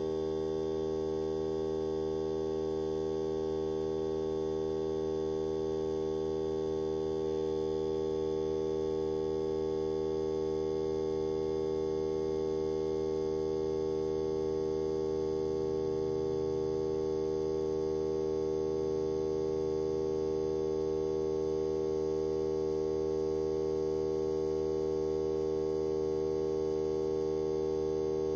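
Hart 20-volt cordless 2-gallon air compressor running steadily with a constant hum as it slowly airs up a car tire, getting slightly louder about seven seconds in.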